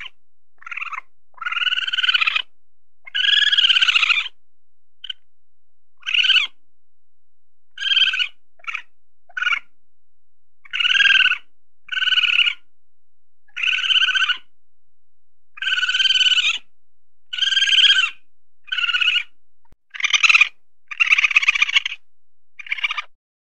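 Weasel calling: a string of high-pitched squealing calls, some short and some drawn out to about a second, repeated at irregular gaps of about a second.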